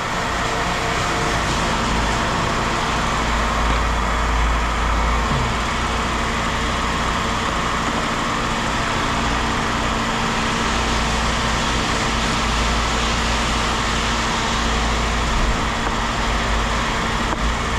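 A vehicle engine idling steadily, with a constant low hum and rumble.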